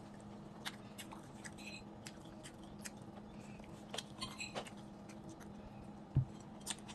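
Someone eating rice noodles with a fork: quiet chewing and lip sounds with scattered small clicks of the fork, over a steady low hum. A dull thump about six seconds in.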